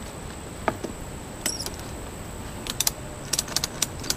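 A tie-down strap being handled and fastened around a beehive: a few scattered light clicks, then a quick run of clicks and rattles near the end.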